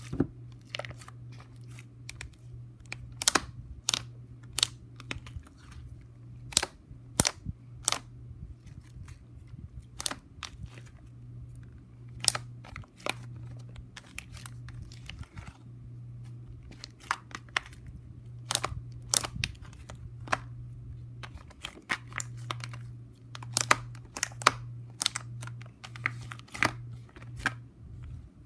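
Hands poking, stretching and squishing slime, giving many sharp, irregular clicks and pops as air pockets burst, over a steady low hum.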